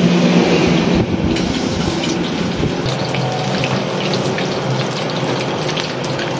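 Battered fish fillet deep-frying in hot oil in a wok: a steady sizzle with dense crackling, which picks up about a second and a half in.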